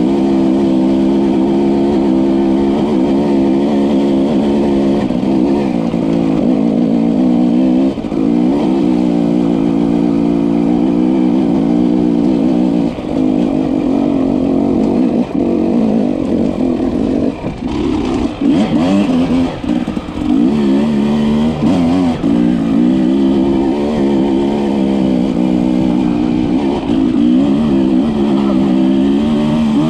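Enduro dirt bike engine running under way, its revs rising and falling continuously as the rider works the throttle, with a rougher, clattering stretch about two-thirds of the way through.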